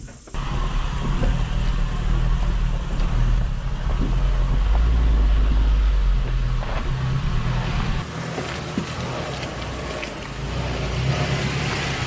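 Mitsubishi L300 Delica van's engine running with a heavy low rumble as it crawls along a rough four-wheel-drive track. About eight seconds in the sound changes abruptly to a lighter, hissier engine and track noise.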